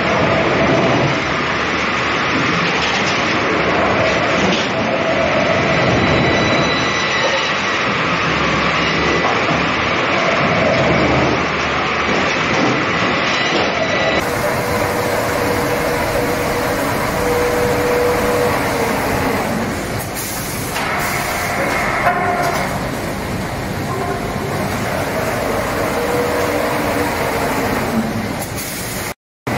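Log-handling machinery on a veneer peeling line running: a steady rattling mechanical noise from logs travelling on chain conveyors and through a roller log debarker, with a faint whine on top. The recording changes abruptly about halfway through and drops out for a moment near the end.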